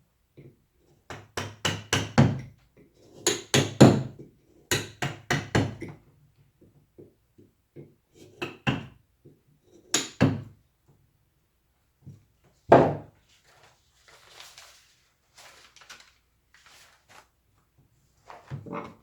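Woodcarving tools working a block of wood: quick groups of sharp wooden taps over the first six seconds, then a few single knocks. Near the end there is a soft scraping.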